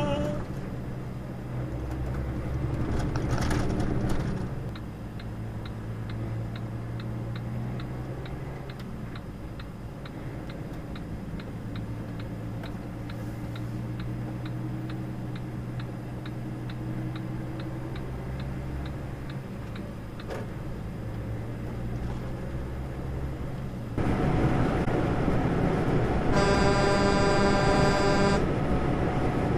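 Truck engine drone heard from inside the cab, with the turn-signal indicator ticking steadily for about fifteen seconds. Near the end the road noise gets louder and a horn sounds for about two seconds.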